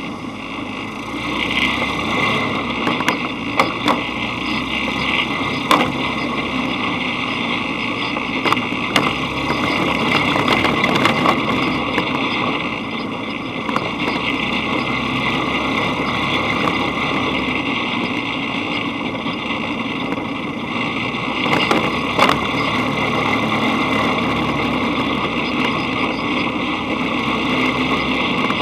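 Dune buggy's engine running steadily as it drives over a rough dirt track, with scattered sharp knocks and rattles from the bumps, picked up by a camera mounted on the buggy's front.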